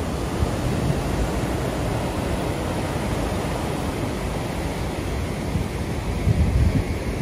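Rough sea surf breaking towards a rocky shore, a steady rush of white water, with wind buffeting the microphone in gusts that strengthen near the end.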